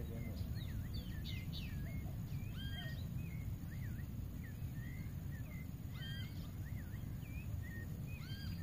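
Birds calling in the background, short whistled notes that swoop up and down, the same phrase coming back every few seconds, over a steady low rumble.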